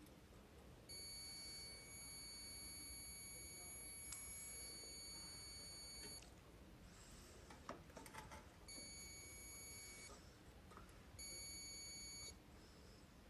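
Multimeter continuity beeper sounding as its probes are held across a microwave oven's high-voltage diode: one long steady beep of about five seconds, then a few light clicks of the probes, then two shorter beeps.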